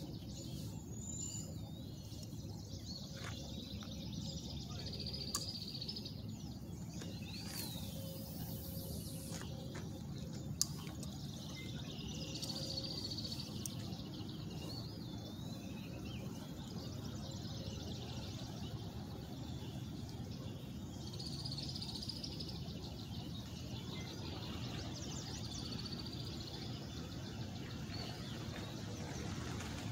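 Small birds chirping and trilling now and then over a steady low outdoor rumble, with one sharp click about ten seconds in.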